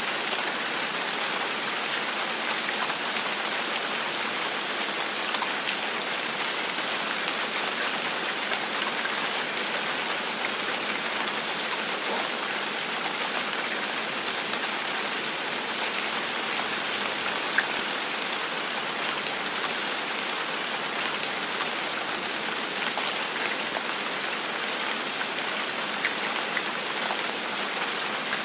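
Steady rain falling on a surface, an even hiss dotted with individual drop ticks, one slightly louder about two-thirds of the way through.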